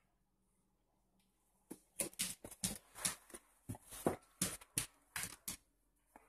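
A dog moving about excitedly at a door: a quick, irregular run of taps and scuffs, roughly three or four a second, starting a couple of seconds in and lasting about four seconds.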